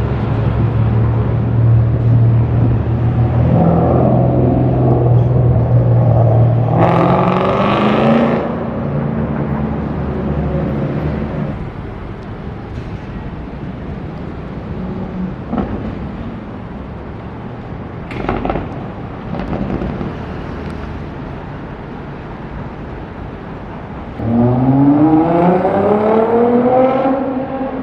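Sports car engines: one runs steadily, then revs up sharply about seven seconds in. A couple of brief sharp sounds come over quieter street noise in the middle. Near the end another car accelerates hard, its engine note climbing steeply for about three seconds.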